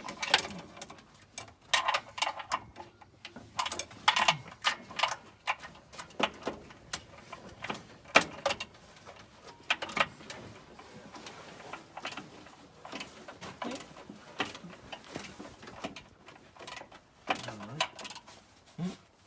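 Irregular metallic clicks, knocks and clunks of hand tools and drivetrain parts being worked as the torque converter is turned and lined up with the flexplate, a few with a brief ring.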